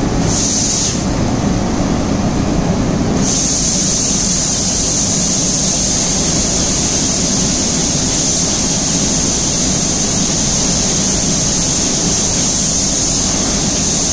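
Automatic reciprocating spray painting machine running in its spray booth: a steady mechanical rumble with a high hiss from the spray guns. The hiss stops about a second in and comes back about three seconds in, then holds steady.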